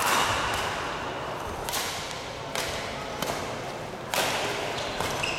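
Rackets striking the shuttle or ball in a doubles rally: about five sharp hits, one to two seconds apart.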